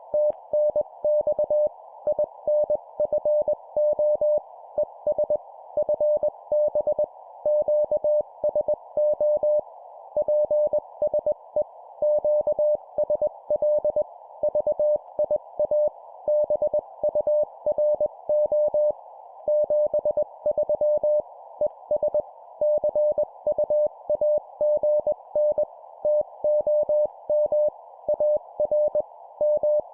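Morse code (CW) sent at 20 words per minute: a single steady tone keyed on and off in dots and dashes, with short gaps between letters and longer ones between words, over a faint steady hiss. It is part of an amateur-radio contact (QSO) being exchanged in code.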